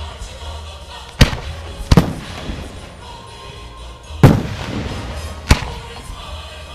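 Aerial firework shells bursting in a string of sharp bangs: one about a second in, a quick pair just after, then two more later on, each trailing off in a rumbling echo.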